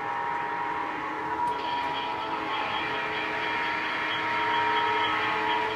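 Running sound of an approaching Lionel O scale model train, a steady hum of several held tones over a rolling noise, growing gradually louder, with a higher tone joining about a second and a half in.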